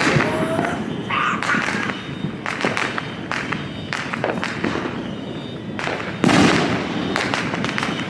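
Fireworks going off: a dense, irregular crackling and popping, with a louder burst about six seconds in.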